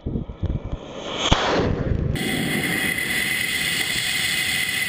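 Model rocket motor firing at liftoff: an uneven rushing roar with a sharp crack partway through. About two seconds in it gives way to a steady rush of air with a high whine, heard from the GoPro riding on the rocket in flight.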